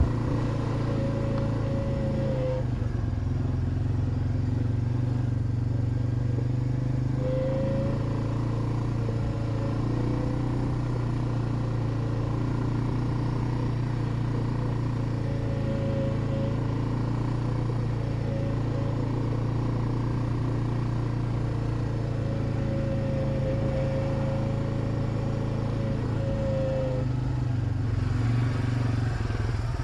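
Suzuki 400 ATV's single-cylinder four-stroke engine running steadily, with a faint higher whine that comes and goes.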